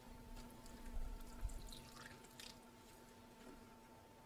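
Water poured from a plastic bottle into the soil of a potted pothos: faint dripping and trickling as the soil takes it in.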